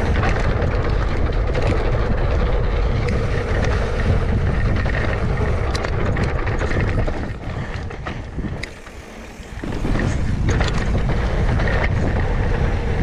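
Wind rushing over a GoPro Hero 9's microphone while mountain biking, with a heavy rumble and a few sharp knocks. It eases briefly about nine seconds in, then comes back.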